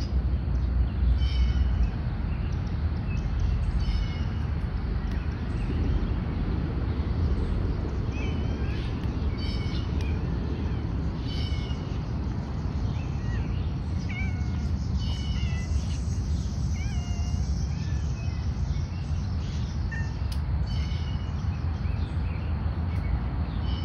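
Outdoor cats meowing, with short high chirps recurring throughout and a steady low rumble underneath. The meow-like bending calls cluster in the middle.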